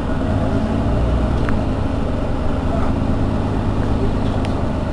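Mercedes-Benz Citaro facelift city bus standing with its engine idling steadily.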